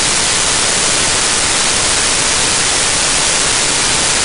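Loud, steady hiss of static that covers everything, even as the speaker goes on gesturing: an audio signal fault rather than a sound in the kitchen.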